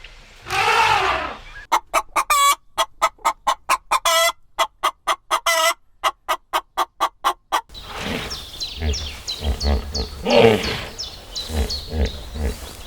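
Chickens clucking: a long call near the start, then a run of quick, evenly paced clucks, about four a second, followed by a busier stretch of high short chirps and a few longer calls.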